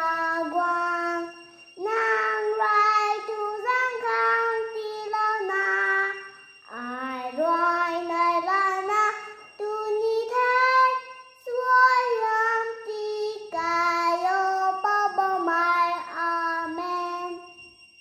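A young girl singing a prayer alone and unaccompanied: a sung grace before a meal, in short melodic phrases with brief pauses between them, ending just before the close.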